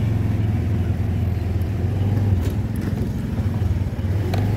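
Motorcycle engine running steadily while riding, heard from on the bike. The engine note eases briefly a little past halfway, and a few sharp knocks come near the end as the bike runs onto a rough, potholed road.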